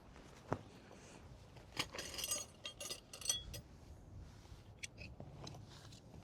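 A soft knock, then a quick run of light clinks and clicks of small hard objects being handled, with a few more clicks near the end.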